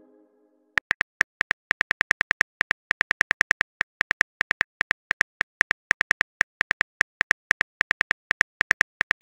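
Phone keyboard typing clicks: a quick, uneven run of short ticks, about five a second, starting just under a second in, as a message is typed out letter by letter.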